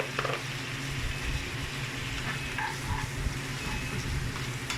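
Chicken pieces frying in melted margarine in a pan: a steady sizzle over a low steady hum, with a few light clicks near the start.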